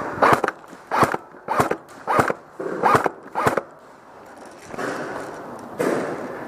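Airsoft electric gun firing about six brief bursts in the first three and a half seconds, roughly one every half to three-quarters of a second, with one more near the end.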